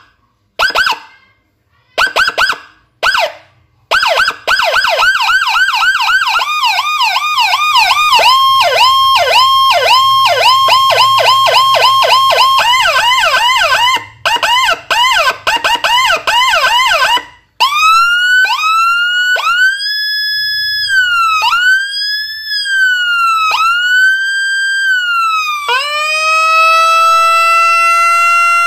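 Custom 200 W electronic siren module with a chip copying Whelen HHS3200 tones, cycling through its tones on a speaker: a few short chirps, then a fast yelp of quick repeating sweeps that changes to a faster pattern, cutting out briefly. After a short break comes a slower wail rising and falling every second or so, and near the end a long tone slowly rising.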